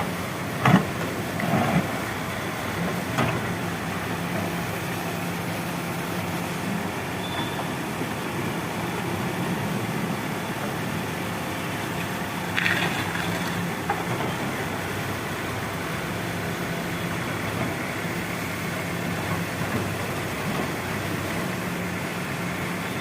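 Diesel engine of a working backhoe loader running steadily. There are a few sharp knocks in the first few seconds and a brief higher-pitched noise about halfway through.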